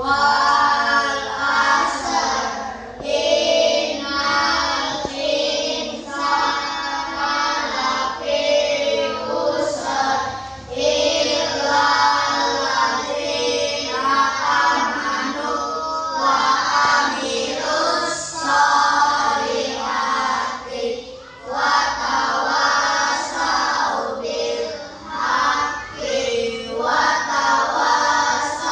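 A group of children singing together in unison, phrase after phrase, with short breaks between the lines.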